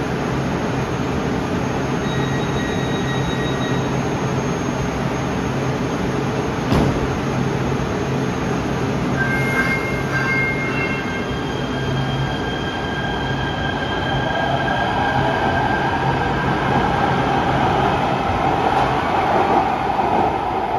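Light rail train in an underground station: the standing car's equipment hums steadily, chime tones sound about two seconds in and again around ten seconds in as the doors close, then a steady whine and wheel-on-rail noise build over the last several seconds as a train moves along the platform.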